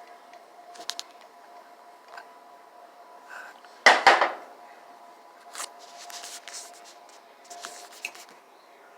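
Dishes and utensils clinking and scraping while food is served onto a plate, with a loud clatter of two quick hits about four seconds in and a few lighter clicks and scrapes after it.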